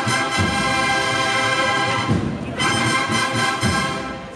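Processional band music dominated by brass, with held notes and a loud, steady melody that thins briefly midway and falls away near the end.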